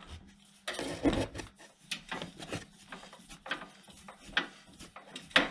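Hands turning a Toyota Yaris drive shaft and working its new rubber inner CV-joint boot into place: rubbing and scraping with a few light knocks, the loudest a scrape about a second in and a sharp knock near the end.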